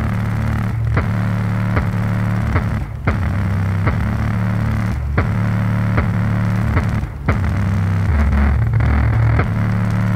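A small subwoofer driver, driven by a 30-watt amplifier module, plays bass-heavy music with loud low notes that change every second or so. Set down unheld, the driver shakes on its surface, and a clicking rattle runs through the bass.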